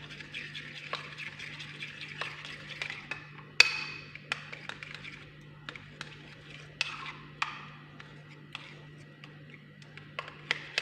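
A spoon clicking and scraping against a bowl as Vaseline is stirred into an egg-yolk mixture: irregular light taps with a few longer scrapes, over a faint steady hum.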